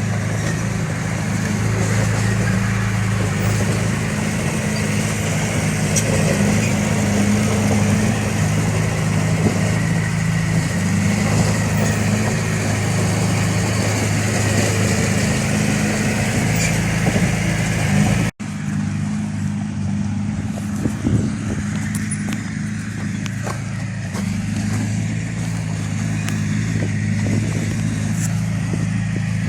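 Heavy machine's diesel engine running steadily, with a momentary dropout about two-thirds of the way through, after which it sounds duller.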